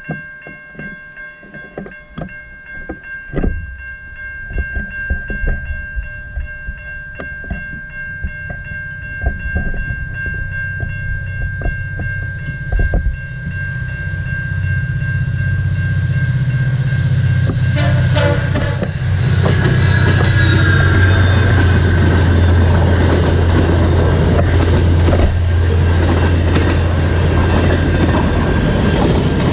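Railway crossing bells ring steadily as a VIA Rail passenger train approaches. The locomotive's rumble builds from about ten seconds in, its horn sounds, and the train passes loudly with wheels clacking over the rail joints.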